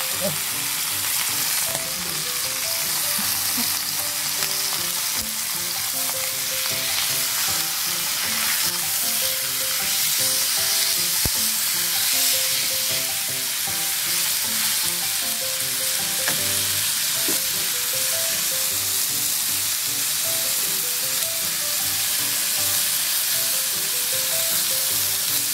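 Chicken frying skin-side down in a frying pan with no added oil, sizzling steadily in the fat rendered out of the skin.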